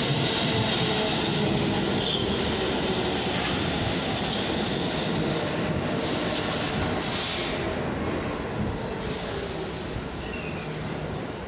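New York City subway Q train running into the station alongside the platform, a steady rumble of wheels on rail and traction motors. There is a short burst of high hiss about seven seconds in, and the noise eases over the last couple of seconds.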